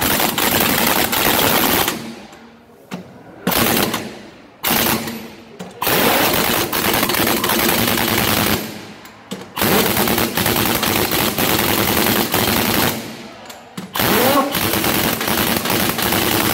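Pneumatic impact wrench rattling on a truck's wheel nuts, in about six long bursts with short pauses between.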